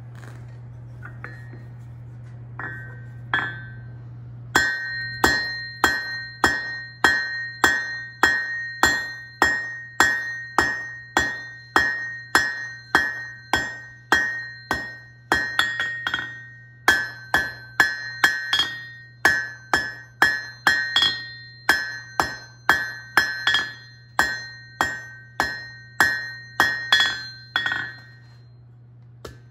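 Blacksmith's hammer striking on an anvil in a steady rhythm, a little under two blows a second, each blow ringing with a clear metallic tone. A couple of light taps come first, and the strikes stop shortly before the end; a steady low hum runs underneath.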